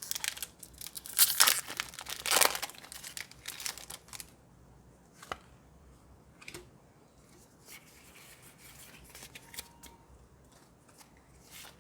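A foil Pokémon booster pack wrapper being torn open and crinkled, with several loud sharp rips in the first four seconds, then only occasional faint rustles and clicks.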